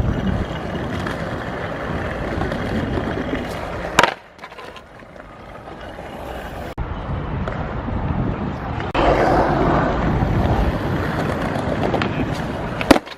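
Skateboard wheels rolling, with one sharp loud clack about four seconds in. The rolling drops away after the clack, then builds again and is louder from about nine seconds, with another click near the end.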